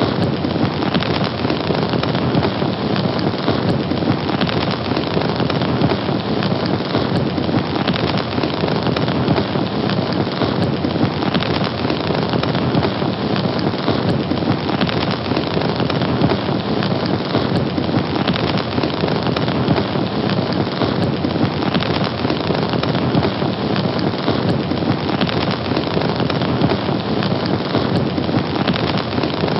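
A fire burning steadily: a dense, even rush of crackling that neither builds nor dies away.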